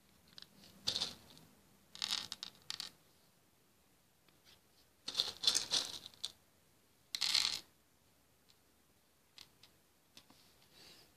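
Small plastic Hama fuse beads clattering as they are handled at a pegboard, in four short bursts of rattling clicks followed by a few faint ticks.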